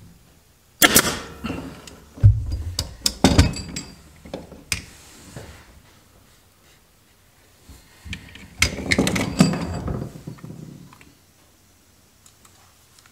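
Hand-held staple gun firing staples through the headliner fabric into the tack strip: sharp snapping shots with a short ring, several in the first five seconds and another cluster about nine seconds in, with fabric handled between them.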